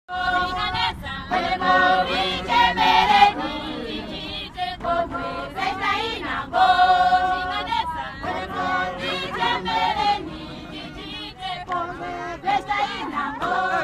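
A group of women singing together in chorus, several voices holding long notes.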